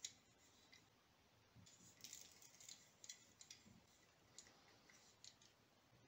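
Faint handling sounds of small plastic and metal coaxial cable tool parts: a sharp click at the start, then scattered light clicks and short rustles.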